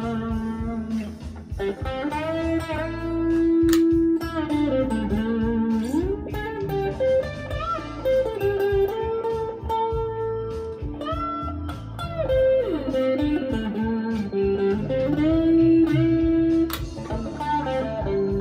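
Overdriven electric guitar playing a bluesy single-note lead over a backing track, with long held notes and several string bends.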